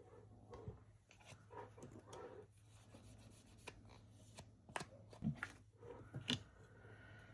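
Small nail-stamping tools and bottles being handled on a tabletop: scattered light clicks and taps with short rubbing sounds. The loudest clicks come about five and six seconds in. A faint steady low hum runs underneath.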